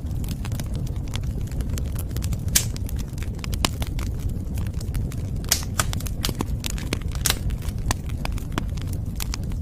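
Wood fire burning, with a steady low rumble and frequent irregular sharp crackles and pops.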